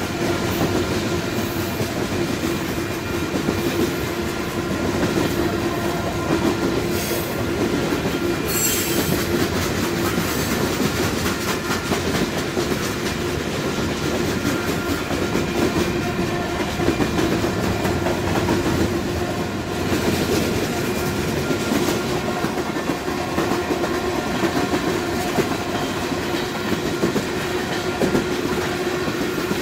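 Freight train cars rolling steadily past close by: a continuous rumble of steel wheels on rail with clickety-clack over the rail joints, and a brief sharp high-pitched noise about nine seconds in.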